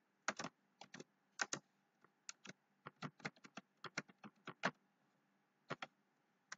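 Typing on a computer keyboard: a run of quick, irregular key clicks that pauses a little before five seconds in, followed by a couple more keystrokes.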